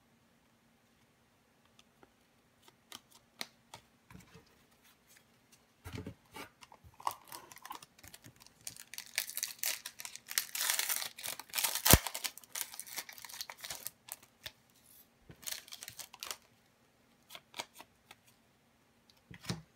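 A foil hockey-card pack wrapper being torn open, crinkling for several seconds in the middle, with one sharp crack partway through. Light clicks of cards being handled come before and after.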